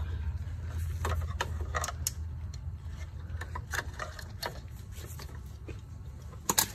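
Small plastic clicks and scrapes of a metal pick tool prying a wiring connector free in a car's front end, with a sharper click about six and a half seconds in. A steady low hum runs underneath.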